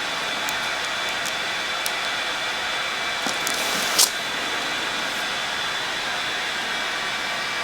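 Steady, even hiss of blowing air from a small running machine, with one short sharp click about four seconds in.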